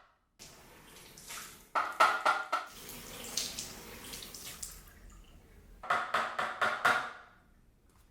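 Cold tap water running over a Dyson V8 Slim vacuum filter being rinsed in a sink, with two quick runs of sharp, ringing knocks, four about two seconds in and five near the end.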